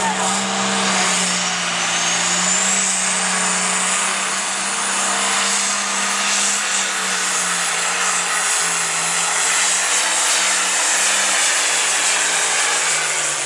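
Turbocharged diesel engine of a light pro stock pulling tractor running flat out under full load as it drags a pulling sled. A steady, loud engine drone runs beneath a high turbo whine that climbs over the first few seconds, then holds. The sound eases off right at the end as the run finishes.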